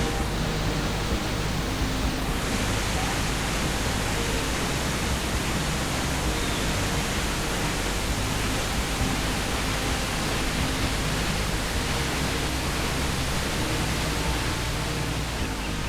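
A waterfall's steady roar: a dense, even rush of falling water with no breaks.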